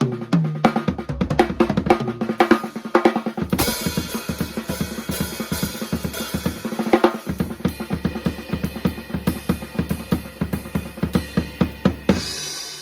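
Drum kit played for a test of a TAMA 13-inch snare drum. A few seconds of separate drum hits with a low ringing tone give way to a fast, busy pattern of snare and bass drum under a cymbal wash, which breaks off briefly near the end.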